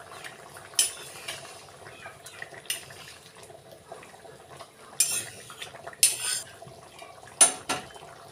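Metal spatula stirring curry in a black kadai on a gas stove, scraping and clanking against the pan in about five short, sharp strokes, the loudest near the end.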